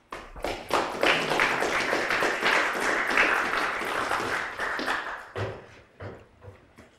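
Small audience applauding at the end of a talk. The clapping swells within the first second, holds, and fades out about five seconds in, with a few last claps.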